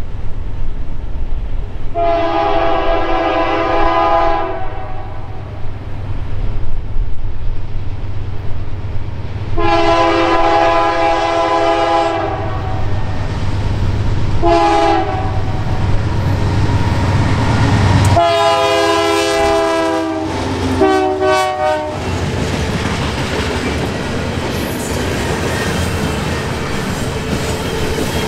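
Norfolk Southern GE AC44C6M diesel locomotive's air horn sounding the grade-crossing signal as the train approaches: two long blasts, a short one, then a long one broken into two, over the train's low rumble. After the horn the loaded coil steel cars roll past with a steady rush and clatter of wheels on rail.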